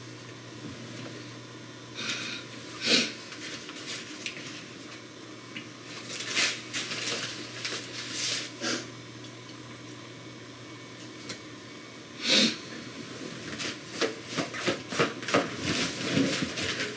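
A crinkly snack packet being handled and rustled in the hands, in short scattered crackles. The crackles come in a few brief clusters and then quicken into a rapid run of crinkling near the end.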